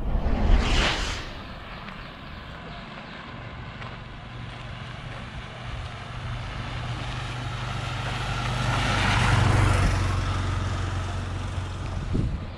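A brief loud whoosh near the start, then the small engine of an auto-rickshaw (tuk-tuk) approaching and passing: a steady drone that grows louder to a peak about nine and a half seconds in, then fades.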